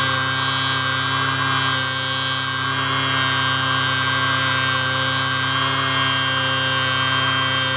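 Small electric bench polishing machine running steadily with a motor hum and whine, while a steel knife blade is buffed against its spinning polishing wheel; a hiss rises and eases as the blade is worked.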